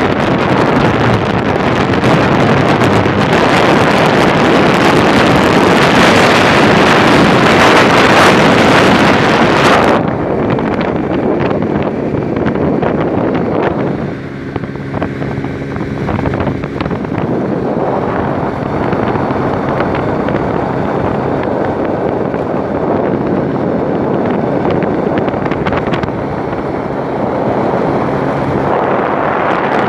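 Wind noise rumbling and hissing on the microphone. About ten seconds in, the hiss suddenly loses its high end and drops a little in level. Soon after, a low steady hum made of several even tones comes in for a few seconds.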